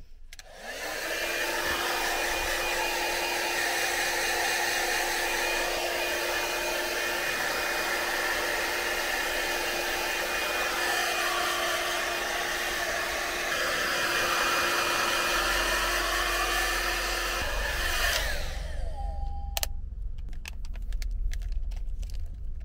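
Small handheld hair dryer switched on and blowing steadily, a rush of air over a constant motor hum that shifts as it is moved around the head. About eighteen seconds in it is switched off and winds down, followed by light clicks and rustling as its cord is wrapped up.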